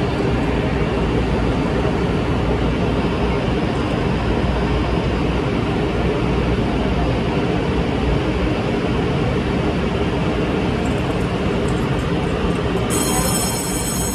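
Steady, loud running noise of a Taiwan Railway EMU500 electric multiple unit standing at the platform with its doors open. Near the end a high-pitched electronic tone sets in over it.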